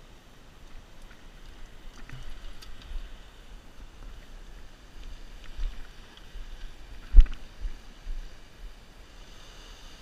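Wind buffeting a body-worn camera's microphone, a low rumble, broken by a few knocks from handling the rod and gear; the loudest is a sharp knock about seven seconds in.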